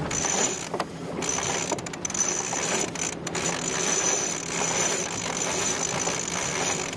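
A sailboat's cockpit winch clicking on its pawls as the jib's roller-furling line is hauled in by hand with one wrap around the drum, rolling up the jib.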